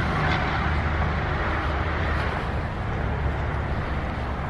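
A motor vehicle running, a steady low engine rumble with road or wind noise over it.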